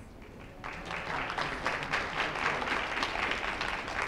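An audience applauding: a few scattered claps, then full applause from about half a second in.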